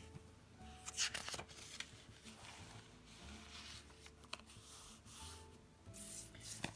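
Thin pages of a Hobonichi A6 planner rustling as they are handled and turned over, with a few light taps and clicks, over faint background music.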